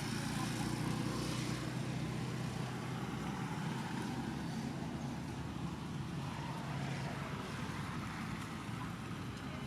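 Low, steady hum of a motor vehicle's engine running nearby, easing off slightly near the end.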